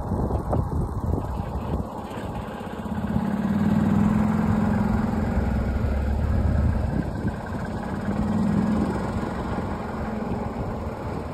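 Vehicle engine running over a low road rumble, with a steady low hum that swells about three seconds in and again near the end.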